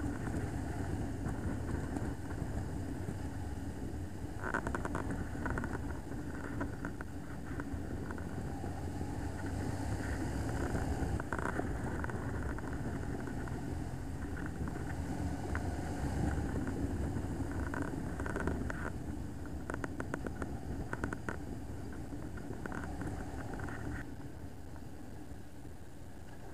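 A motorcycle running at road speed: a steady engine drone with road noise, and short clusters of faint clicks now and then.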